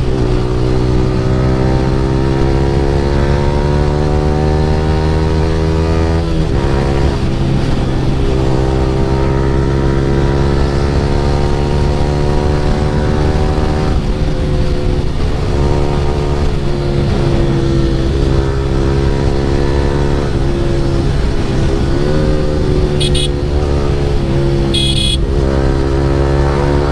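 Yamaha R15 V3's single-cylinder engine through an Akrapovic full-system exhaust, accelerating hard with the revs climbing steadily in each gear. The pitch drops back at upshifts about six, fourteen and twenty-two seconds in.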